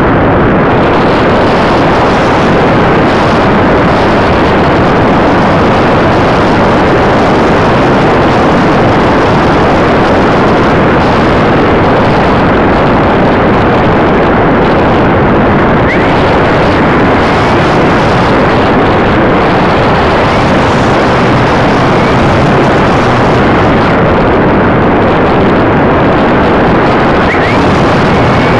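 Loud, steady rush of air over the onboard camera's microphone on an RC glider in flight. It is a dense noise with no clear motor tone.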